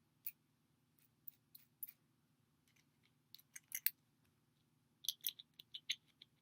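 Small sharp clicks and taps of skateboard wheel, bearing and truck hardware being handled and fitted together, in irregular clusters with the loudest around the middle and near the end.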